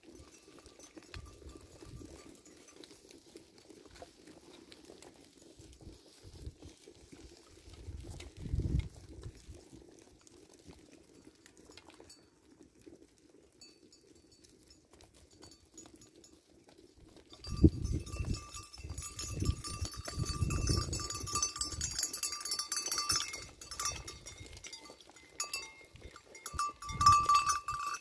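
A metal livestock bell clanking on a flock of sheep on the move: faint at first, then loud and continuous from about two-thirds of the way in. Scattered low thumps lie underneath.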